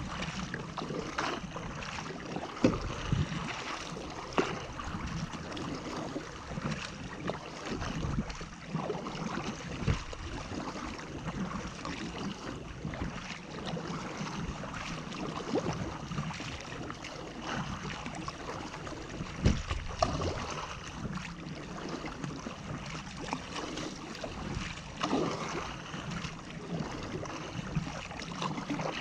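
Sea kayak paddled hard: a double-bladed paddle splashes into the water on each stroke, over a steady rush of water past the hull and spray off the bow.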